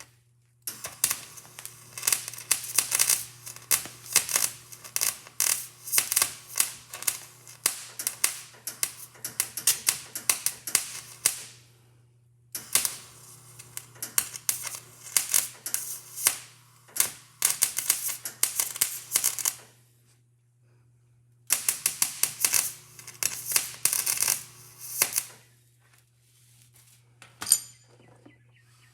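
Arc welder crackling in three long runs of rapid sharp pops, the first about ten seconds, then about seven and about four, with short pauses between, as a bracket is welded on. A steady low hum runs underneath.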